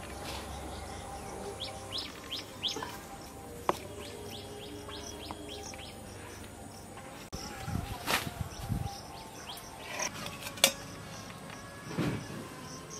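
Small birds chirping over and over in outdoor village ambience. In the second half come a few dull thumps and one sharp click.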